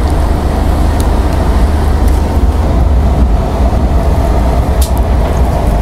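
Moving vista dome passenger train: a steady, loud low rumble of running noise.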